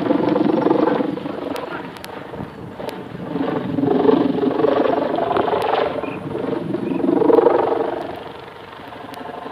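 Sendaren kite hummer on a big pegon kite, a 7-metre bamboo bow strung with a plastic-film ribbon, buzzing in the wind. It is a bubbling drone like boiling water that swells and fades three times as the wind pushes on the kite.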